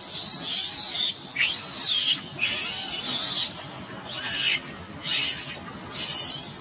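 Long-tailed macaques screeching in a squabble: a string of about seven shrill, harsh shrieks, each under a second, roughly one a second.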